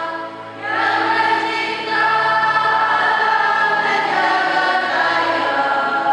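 Voices singing together in slow, sustained chords of a liturgical chant, with a short break just after the start before the singing comes back in.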